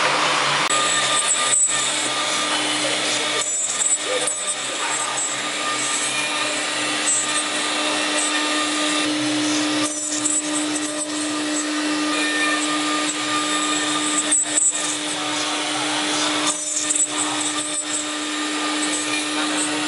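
Spindle of a Lih Woei LH-5101-S CNC router running with a steady whine while its cutter mills wood, with intermittent high crackle from the cutting.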